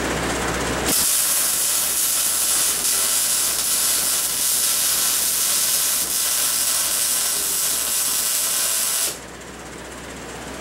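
Welding arc laying a bead: a steady hiss that starts about a second in and cuts off abruptly near the end when the arc is broken.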